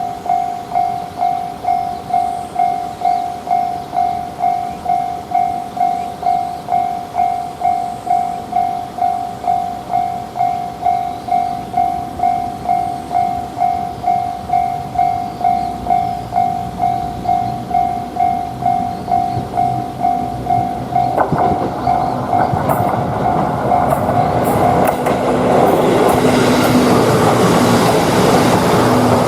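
Japanese railway level-crossing alarm ringing its steady kan-kan, about two strikes a second. About two-thirds of the way through a train arrives and passes, its rumble and wheel clatter rising until it drowns out the bell.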